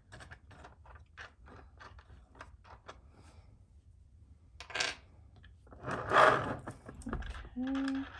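Brass wing nuts being unscrewed by hand from a flower press's threaded bolts: a run of small quick clicks, then a louder clatter and scrape about six seconds in as a loosened wing nut is set down on the table and the press is moved.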